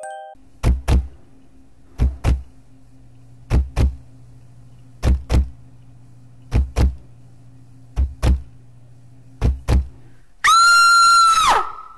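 Heartbeat sound effect: seven double thumps, lub-dub, about a second and a half apart over a low hum. About ten seconds in, a loud high shriek cuts in and slides down in pitch as it dies away.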